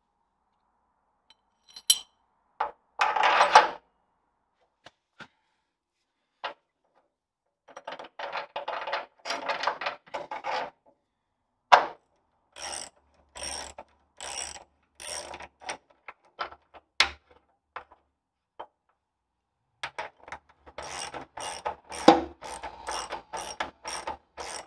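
Ratchet wrench clicking in runs of strokes as a leaf-spring shackle bolt is tightened, about two clicks a second in the middle and a quicker run near the end. Before that, scattered clicks and clanks of metal suspension parts being handled and fitted.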